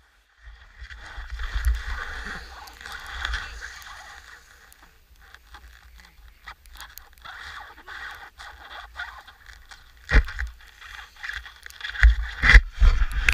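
Skis scraping and hissing over snow on a run. The scraping is steady for the first few seconds, quieter in the middle, then comes back louder with sharp knocks about ten seconds in and again near the end.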